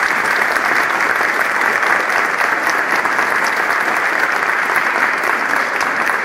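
A crowd applauding, steady and unbroken.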